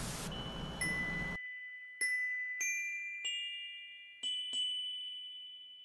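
A burst of TV static hiss that cuts off suddenly after about a second and a half, with a high note struck under it. Then high, bell-like notes are struck one at a time, five more, each ringing on and slowly fading.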